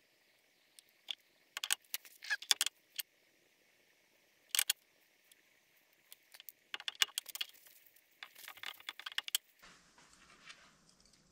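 Light metal clinks and clicks of pedal-cluster parts being handled and fitted together on a workbench: scattered sharp taps, busiest in a run from about two-thirds of the way in.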